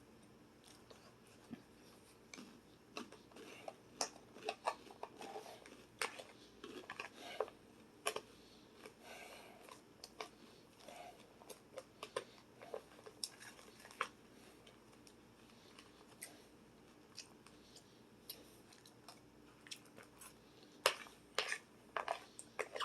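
Person chewing and biting crunchy food, with many short, sharp crunches and clicks at irregular intervals.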